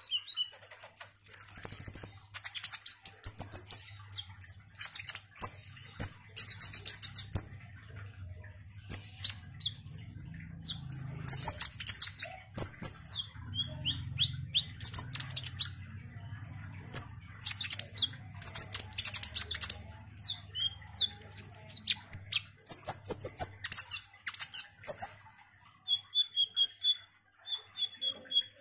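A male kolibri ninja sunbird singing a fast, high-pitched run of chirps, sweeps and trills in bursts. Near the end it switches to a string of short, evenly repeated lower notes.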